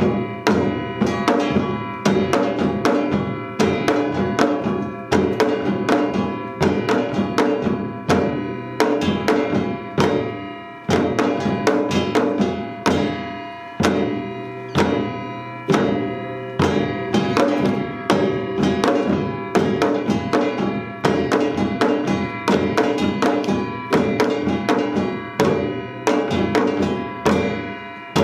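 Korean traditional percussion ensemble playing a Yeongnam-style piece. Janggu hourglass drums and buk barrel drums strike fast rhythmic patterns in repeating phrases, over the steady ringing of a metal gong.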